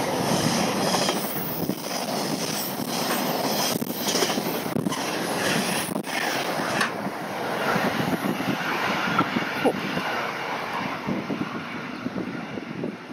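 Container freight train's wagons running past on the rails, with a few sharp clicks from the wheels. The sound falls away after the last wagon passes, about seven seconds in.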